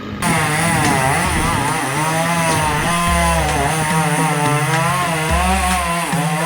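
Two-stroke chainsaw running at high revs, its pitch wavering up and down as it cuts into a coconut palm.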